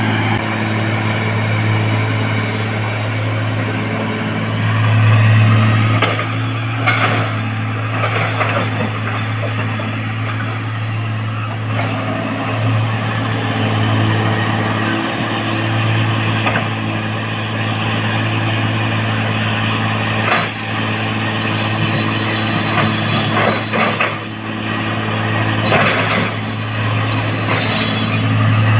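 Heavy construction machinery's diesel engine running steadily under load, with a deep, even hum and occasional sharp metallic knocks and clanks.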